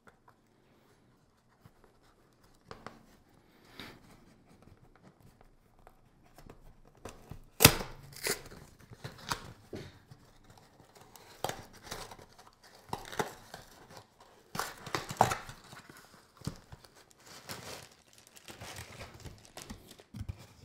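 A cardboard USPS Small Flat Rate shipping box being pulled open and its contents handled: irregular tearing, rustling and crinkling of cardboard and plastic wrap. A sharp rip about seven and a half seconds in is the loudest.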